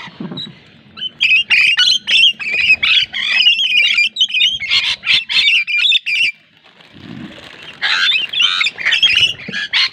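Lorikeets screeching and chattering in loud, harsh, rapid bursts. The calls stop for about a second and a half past the middle, then start again.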